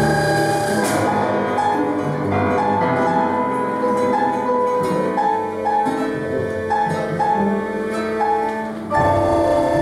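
Live contemporary concert music from a mixed ensemble of recorders, guitars, cellos, percussion and piano. A held chord gives way about a second in to short repeated notes in the middle range, and a full, louder chord comes in suddenly near the end.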